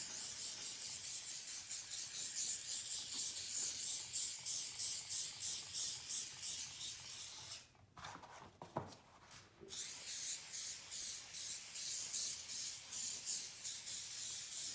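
Aerosol can of spray adhesive hissing in quick pulsing spurts as it is sprayed, stopping briefly about halfway through.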